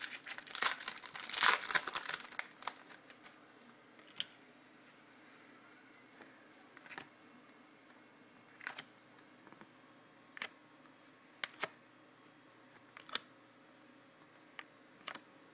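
Trading-card pack wrapper crinkling and tearing for the first couple of seconds, then single light clicks and taps every second or two as the cards are handled and flicked through.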